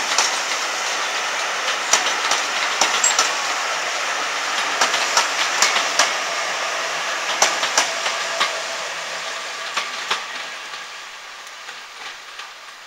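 Passenger coaches of a steam-hauled train rolling past. Their wheels clack irregularly over the rail joints above a steady rolling noise, which fades away over the last few seconds as the train moves off.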